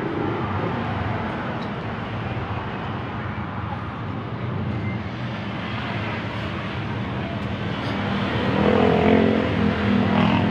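A motor vehicle engine running steadily with a low hum, growing louder about eight seconds in.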